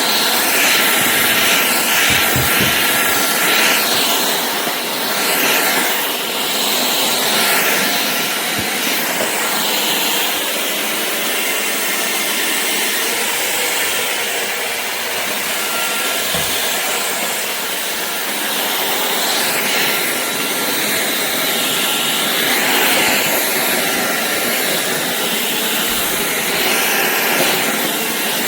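Shark Clean & Empty cordless stick vacuum running: a steady rushing suction noise with a faint high whine, the level rising and falling slightly.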